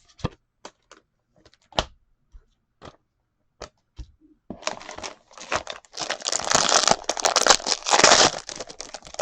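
A few light clicks of trading cards being handled, then a foil trading card pack wrapper crinkling and being torn open from about four and a half seconds in.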